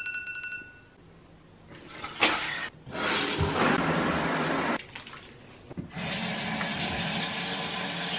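A smartphone alarm tone sounds briefly, then running water: a shower spraying onto tile in two long stretches, stopping and starting, with a sharp click about two seconds in.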